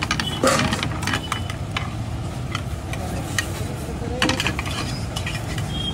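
Street-stall cooking: metal utensils clicking and knocking against a steel pan and plates several times over a steady low rumble, with voices in the background.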